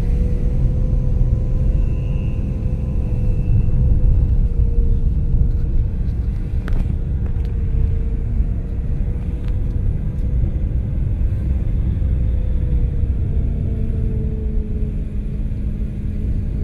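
A car's engine and tyre rumble heard from inside the cabin while driving slowly, a loud steady drone with an engine hum that wavers slightly in pitch. A couple of faint clicks come about seven seconds in.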